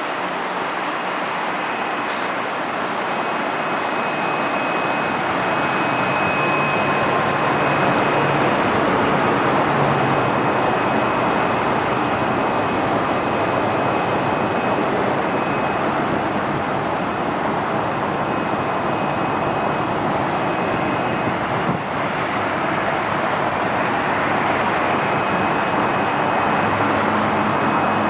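Steady traffic noise from a busy multi-level elevated expressway, a continuous wash of tyre and engine sound from many vehicles, with no sirens.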